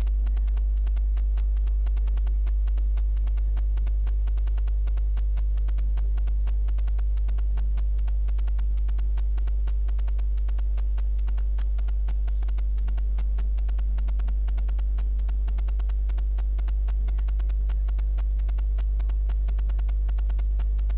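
A steady low electrical hum, like mains hum, with several fainter steady overtones above it and no change in level.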